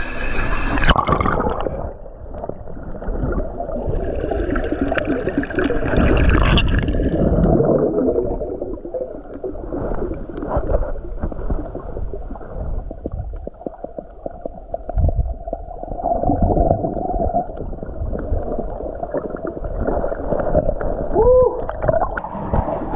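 Muffled rushing and bubbling water heard with the camera held underwater, as the swimmer moves through the pool. A short wavering tone comes near the end.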